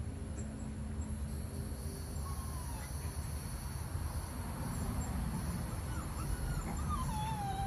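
Puppies whimpering in a few thin, wavering, high whines that fall in pitch, the longest near the end, over a steady low rumble.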